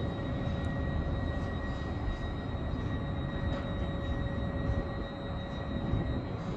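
Soko electric train (a Stadler KISS multiple unit) standing at the platform, giving a steady electrical hum with a high, even whine over a low rumble.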